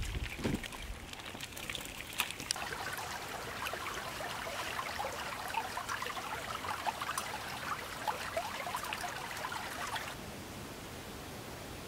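Shallow water trickling and babbling in a concrete irrigation channel, a busy, fine patter that eases to a quieter hiss near the end. A few soft thuds come in the first second.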